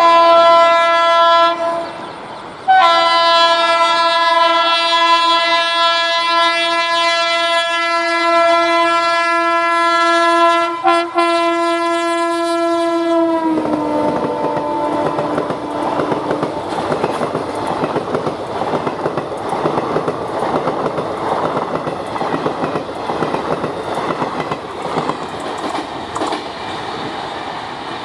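Indian Railways WAP-7 electric locomotive's horn: a short blast, then one long blast of about ten seconds that drops in pitch as the locomotive passes. After it, the parcel train's wagons rumble and clatter steadily past.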